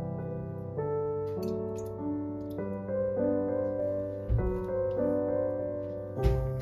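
Background piano music, a slow melody of held notes. Two soft thumps about four and six seconds in.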